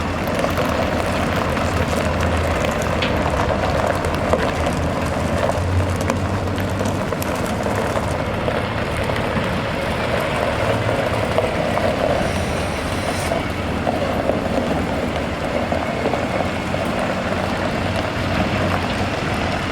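Cummins B6.7L diesel engine of an International MV dump truck running steadily, a constant low hum with no change in speed.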